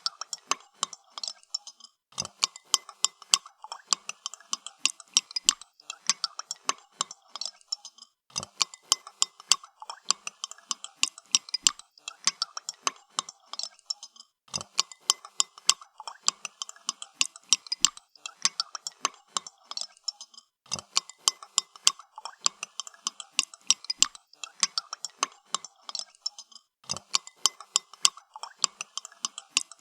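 Spoon stirring coffee in a cup: rapid clinks of the spoon against the cup's sides, in runs of about six seconds broken by short pauses.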